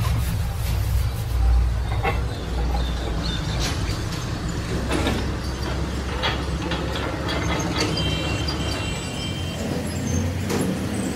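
Tyre-workshop noise: a steady low hum with scattered light clicks and knocks from hand work on a tractor tyre and its screw clamp.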